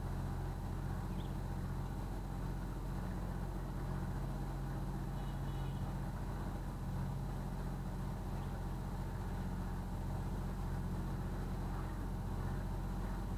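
A small canal cruiser's engine running steadily at low cruising speed, a constant low hum with no change in pitch.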